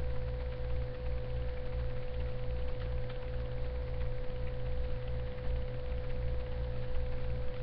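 Steady electrical hum with a constant mid-pitched tone over a low drone and an even hiss: the background noise of a webcam microphone in a room where nobody speaks.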